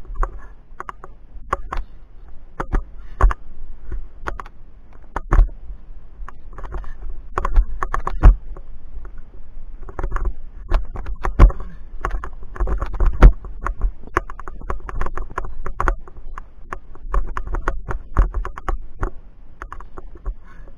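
Irregular clicks and knocks of via ferrata climbing gear, metal carabiners and lanyard knocking against the steel cable and rock as the climber moves, with a low rumble underneath.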